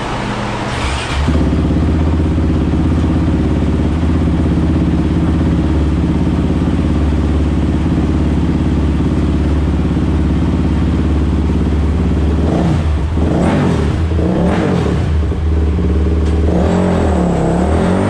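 Honda TRX450's single-cylinder four-stroke engine running. Its pitch steps up about a second in and is then held steady for around ten seconds. Over the last few seconds it is revved up and down several times.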